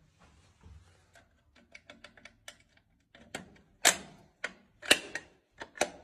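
Clicks and knocks from a smoke alarm being handled: a run of small quick clicks, then about six louder knocks in the last three seconds.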